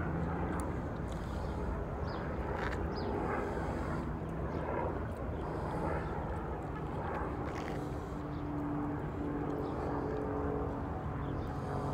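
Steady, even rumble of an airplane passing high overhead, with faint engine tones coming in partway through.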